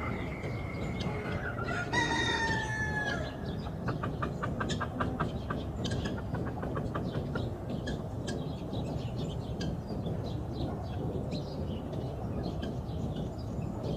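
Roosters crowing: the end of one crow about a second in, then a louder crow about two seconds in that falls in pitch as it ends. A quick run of short clucks follows, and scattered clucks and chirps continue over a steady background hiss.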